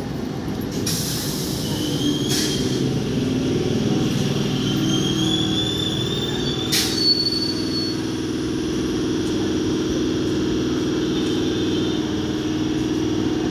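Electric multiple-unit local train braking to a stop: a high squeal of wheels and brakes rises in pitch over a low rumble, with a brief sharp hiss as it halts about seven seconds in. It is followed by a steady low hum as the train stands.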